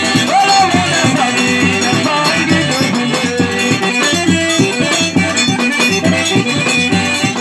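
Accordion playing a tune with held chords, over a steady percussion beat.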